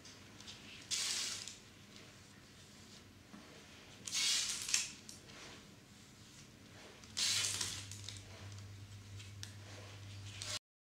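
Three short bursts of hissing, rustling noise, each under a second, about a second, four seconds and seven seconds in, over a faint background; a low steady hum joins from about seven seconds in, and the sound cuts off just before the end.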